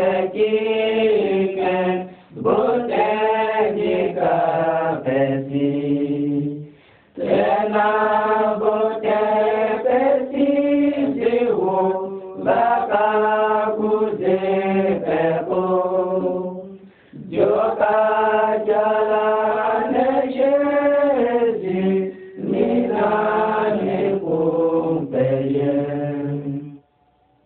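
A group of voices singing a religious chant together in phrases of a few seconds each, with a short break for breath between phrases.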